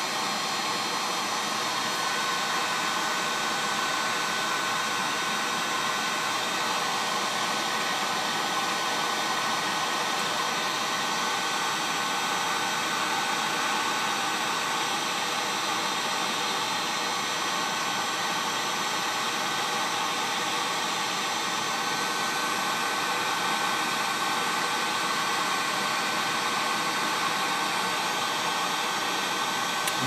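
Heat gun blowing hot air steadily, with a thin steady whistle joining about two seconds in. It is heating a phone motherboard's micro USB charging port to melt the solder so the port can be removed.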